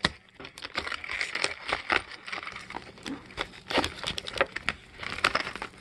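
A quill dip pen writing on paper: irregular scratches and taps of the nib, mixed with rustling of a jacket sleeve close by.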